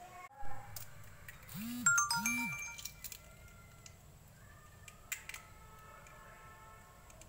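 A short electronic sound-effect jingle: chiming notes with two quick up-and-down swoops in pitch, about two seconds in. Near five seconds a sharp tick is followed by a chime that rings out and fades.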